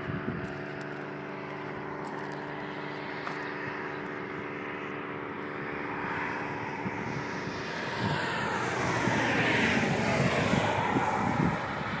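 Road vehicle passing on an asphalt highway: tyre and engine noise swells from about eight seconds in, peaks around ten seconds and eases off. Before it, a steady droning hum fades away over the first half.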